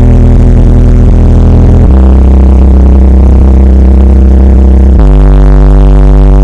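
Car sound system's subwoofer playing a bass-heavy track at full volume: long deep bass notes, shifting pitch about two seconds in and again near the end, loud enough that the recording is pinned at its limit.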